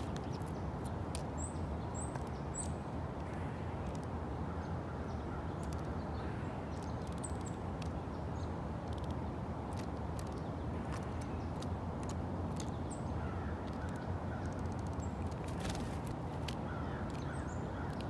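Small wild birds giving brief high chirps, three in quick succession about a second in and a few more later, with scattered sharp clicks of beaks pecking at seed on a log feeder, over a steady low background noise.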